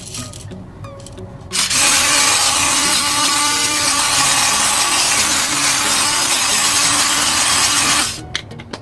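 Battery-powered electric pepper grinder running, its small motor grinding pepper steadily; it starts about a second and a half in and stops near the end.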